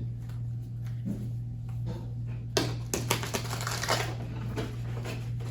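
Tarot cards being shuffled and handled, with a few quick papery rustles and clicks in the middle, over a steady low hum.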